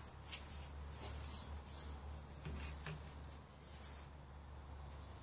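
Faint, irregular rubbing and brushing as hands handle a steel handsaw blade, over a steady low hum.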